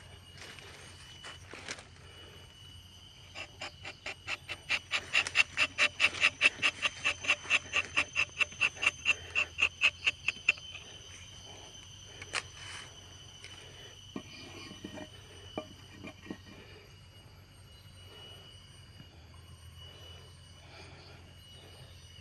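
A blunt, unsharpened rubber-tapping knife judders as it is drawn through the tree's bark, giving a snoring rasp of quick squeaky pulses, about four a second. The rasp starts a few seconds in, lasts about seven seconds, and is followed by a few faint clicks.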